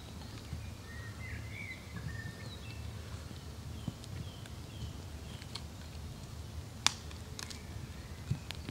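Small birds chirping in short whistled phrases over a steady low rumble, with a few sharp cracks of dry twigs in a freshly lit kindling fire, the loudest about seven seconds in.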